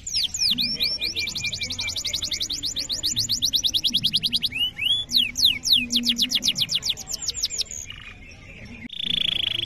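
Male domestic canary singing a fast, continuous rolling song: rapid trills of repeated down-slurred notes, about fifteen a second, shifting between note types. Near the end the song fades, breaks off suddenly, and a buzzier trill on one pitch begins.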